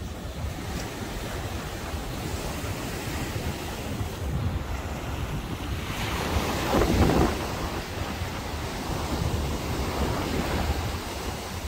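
Ocean surf washing onto the beach, with wind buffeting the microphone; one wave swells up louder about seven seconds in.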